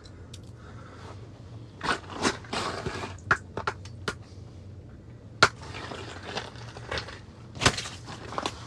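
Irregular crunching and scraping of slushy, chipped ice around an ice-fishing hole, with a few sharp knocks, the loudest about five and a half seconds in and near the end.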